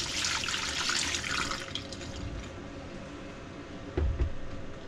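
A stream of liquid poured from a container splashing into a stainless steel sink and down its drain, tailing off and stopping about two seconds in. A short low thump follows near the end.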